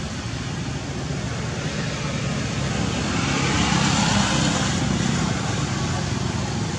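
Steady outdoor background noise with a low rumble, swelling a little about three seconds in and easing again.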